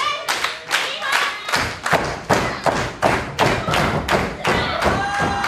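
Rhythmic thuds in a wrestling ring, about three a second, getting heavier from about a second and a half in, with a high-pitched shout near the end.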